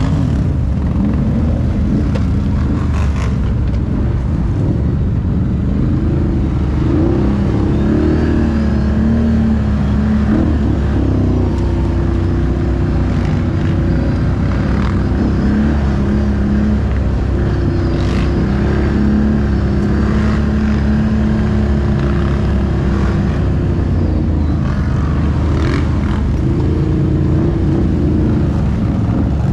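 Can-Am ATV V-twin engine running while riding, a steady low rumble whose pitch rises and falls with the throttle.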